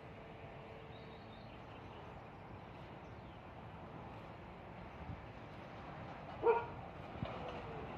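A dog barks once, a short high call about six and a half seconds in, over faint steady background noise.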